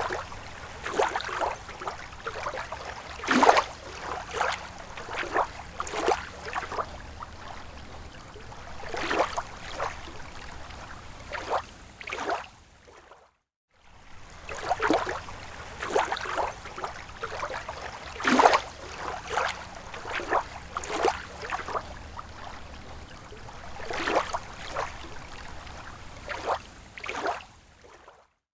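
Water gurgling and splashing with irregular sharp splashes over a steady low rumble. The sound drops out for a moment about halfway, and then the same stretch repeats, so it is a short recording looped.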